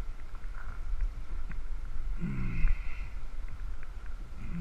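Wind rumbling on the microphone, with a short grunt-like voice sound about two seconds in.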